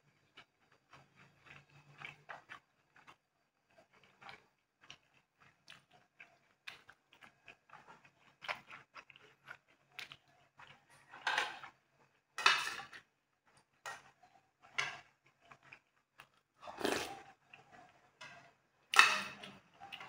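Close-up eating sounds: a person chewing, with many small mouth clicks and several louder wet bites or smacks in the second half, the loudest near the end.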